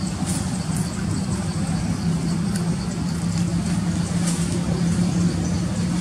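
A steady low hum like an idling engine, with faint crackles and ticks above it.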